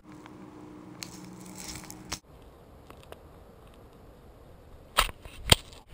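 Quiet background, then two sharp knocks about half a second apart near the end, the second louder, from a golf putter striking the ball on the green.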